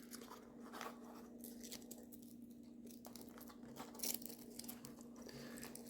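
Faint handling and rustling of a Velcro strap as a rifle cheek rest is pulled tight and fastened around the stock, with a slightly louder rasp about four seconds in.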